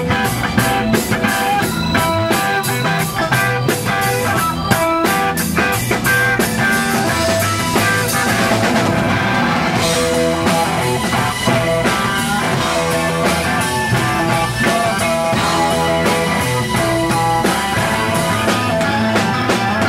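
Live rock band playing at full volume: distorted electric guitars, bass guitar and a drum kit.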